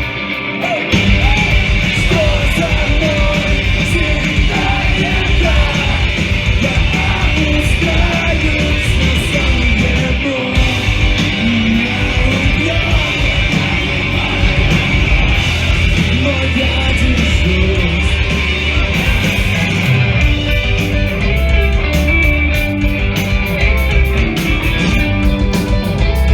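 Live rock band playing a loud punk/emo song with distorted electric guitars, drums and bass, and sung and shouted vocals over the top. There are brief breaks in the low end just after the start and again about ten seconds in.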